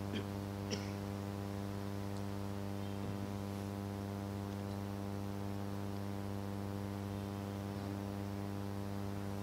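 Steady electrical mains hum from the sound system, with two faint clicks in the first second.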